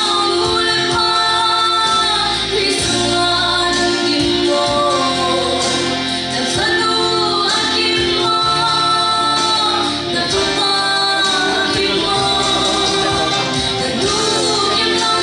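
A woman singing a slow song into a handheld microphone over an instrumental accompaniment with a bass line, without a break.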